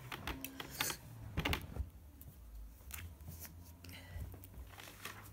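Scattered light clicks, taps and rustles close to the microphone: handling noise from the phone being set up, and a person moving right past it.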